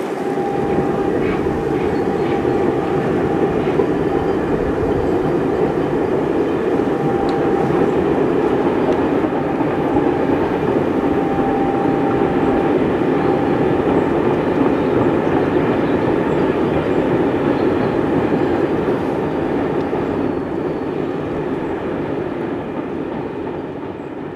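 A long freight train rolls steadily across a viaduct, with a continuous rumble of wheels on rails. A faint thin whine comes and goes during the first half, and the noise fades away near the end.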